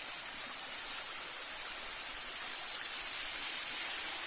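Water from a small waterfall splashing and running, a steady rushing hiss.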